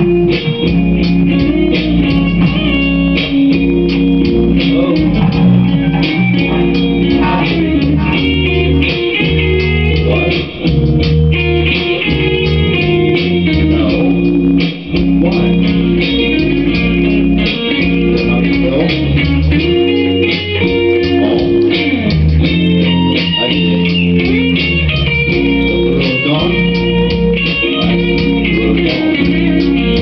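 Blues-rock riff on an electric guitar played through a Line 6 Spider Valve tube amp, over a bass guitar line.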